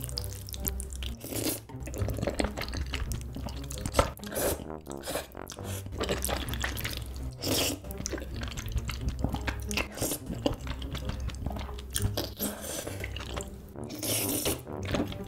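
Close-miked eating of noodles in a creamy rosé tteokbokki sauce: wet slurps as the noodles are sucked in, and squelchy chewing, in irregular bursts.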